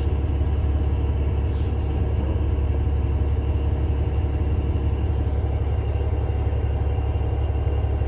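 Steady low rumble of a 2018 New Flyer XD40 city bus's diesel engine running, heard from inside the passenger cabin.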